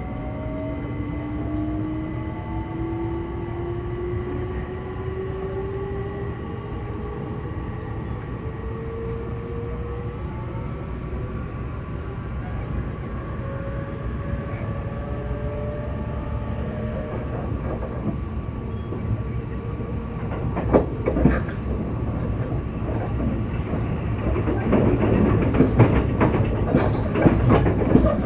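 E257 series 0 limited express electric train heard from inside the car: its traction motors whine, rising in pitch as it picks up speed over the first ten seconds or so, over a steady rumble of wheels on rail. From about two-thirds of the way through, the wheels clatter over rail joints with sharp clicks.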